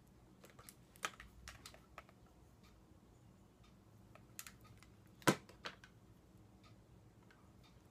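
Scattered small clicks and taps of makeup being handled: a palette and brushes picked up, knocked together and set down. A cluster of light clicks about a second in, and one sharp click, the loudest, about five seconds in.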